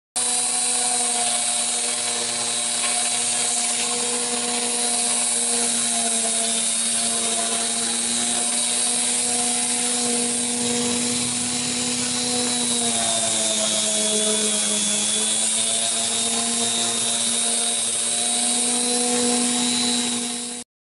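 Electric angle grinder motor, mounted as the cutter of a homemade push mower, running steadily with a high whine while it cuts grass. Its pitch sags for a couple of seconds about two-thirds of the way through, then recovers.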